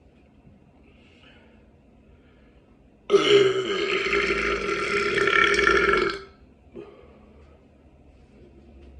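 One long, loud burp lasting about three seconds, starting about three seconds in and cutting off fairly sharply.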